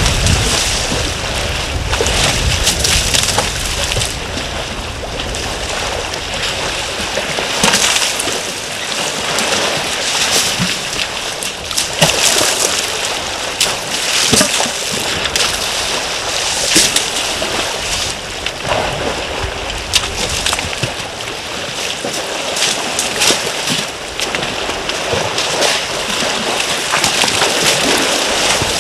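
Water splashing and sloshing as a herd of African elephants rolls and wades in a shallow waterhole, with frequent irregular louder splashes.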